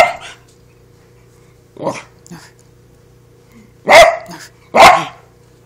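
Small dog barking: a loud bark at the start, two softer short barks about two seconds in, then two loud barks less than a second apart near the end.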